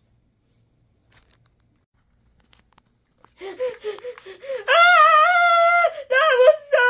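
Near silence, then about halfway through a high-pitched wordless vocal cry sets in: one long held call followed by shorter, broken calls.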